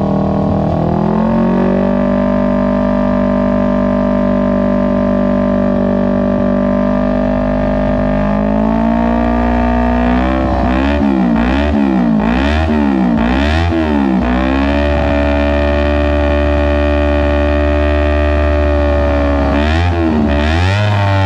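Kawasaki Ninja 250 parallel-twin engine through an R9 GP SS aftermarket exhaust, first held at a steady raised idle. Then it is revved in a run of quick throttle blips around the middle, settles back to a steady speed, and is blipped again near the end.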